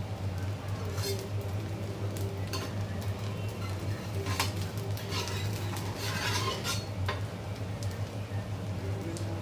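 Steel spatula clinking and scraping against an iron dosa pan, a few separate clinks and a longer scrape about six seconds in, over a steady low hum.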